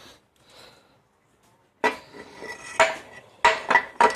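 Metal-on-metal clanks as a tractor transmission's rear cover is set onto the housing and turned to line it up: quiet at first, then about five sharp clanks from about two seconds in.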